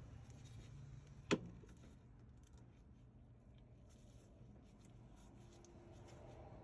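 Hand work on a washer's drive parts: one sharp click or knock about a second in, then faint small taps and rustles over a low steady hum.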